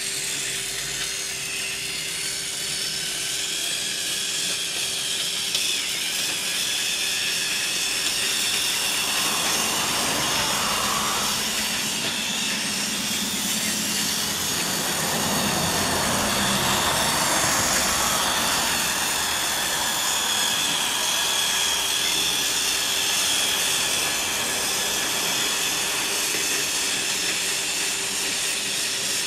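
Battery-powered Tomy Trackmaster toy train locomotives running on plastic track: a steady whining motor hum with wheel and gear rattle, growing louder about halfway through as a train passes close.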